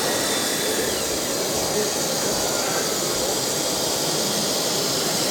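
Steady running noise of RC construction machinery, a continuous hiss-like motor and pump sound with faint whines that slide up and down in pitch.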